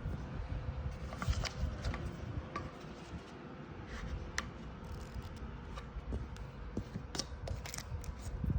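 Handling noises of a product being unboxed: irregular clicks, taps and short scrapes of packaging and parts being handled, with a knock at the end.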